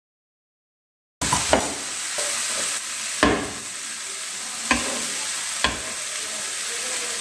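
Chopped purslane and grated coconut sizzling in a nonstick frying pan as a spatula stirs them. The sizzle starts abruptly about a second in, with several sharp knocks of the spatula against the pan.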